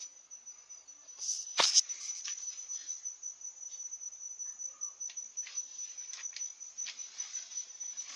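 Cricket trilling steadily, one continuous high-pitched note. A sharp knock about a second and a half in is the loudest sound, with a few faint clicks and rustles around it.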